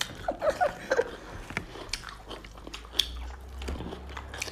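Close-up chewing and biting of food, with irregular crisp crunches and mouth clicks.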